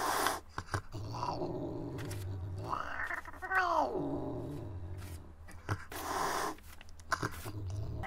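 Angry cat sounds: a steady low growl broken by short hisses, with one yowl about three seconds in that rises and then falls in pitch.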